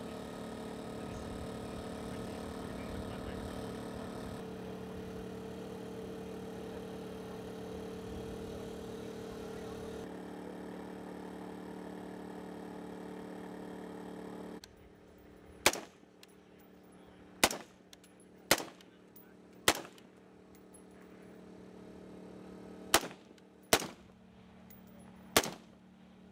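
Steady buzzing hum of several small multirotor drones flying overhead, lasting about fifteen seconds. The hum then drops away and single rifle shots follow, seven sharp shots about a second or two apart, fired at target drones.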